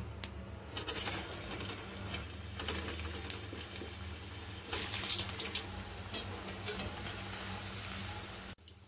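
Cooking oil heating in a pan on the stove, giving a steady hiss with a low hum underneath and a few light clicks. There is a brief louder crackle about five seconds in, and the sound cuts off sharply near the end.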